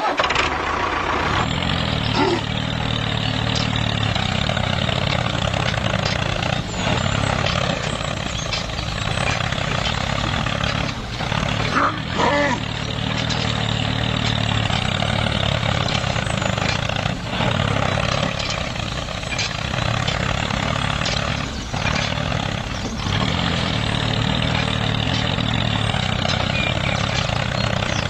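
Homemade mini combine harvester running steadily: a continuous motor hum with the rattle of its mechanism, broken now and then by short clicks and brief dips in level.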